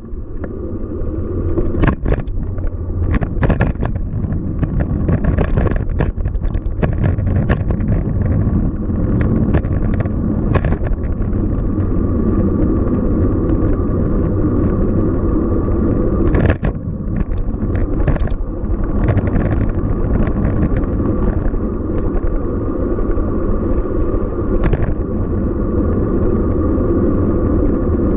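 Steady low rumble of city traffic and road noise, with many short sharp clicks and knocks, thickest in the first ten seconds.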